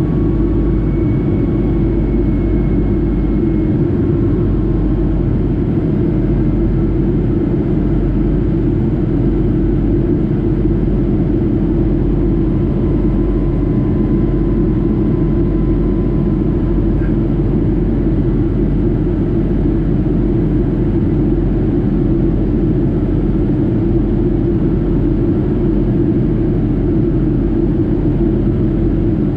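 Steady jet engine and airflow noise heard from inside the passenger cabin of a Boeing 757-200 powered by Rolls-Royce RB211-535 turbofans, a continuous deep drone with faint steady whining tones above it.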